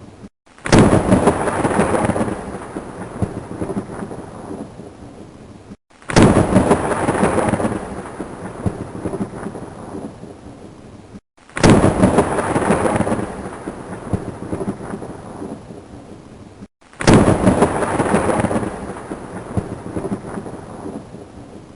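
Thunderstorm sound effect: thunder with rain, a crack of thunder that rumbles and fades over about five seconds. The same clip repeats four times, each time after a brief cut to silence.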